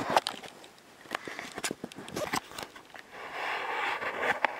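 Sniffing: a breathy hiss lasting about a second and a half near the end, among scattered light clicks and taps.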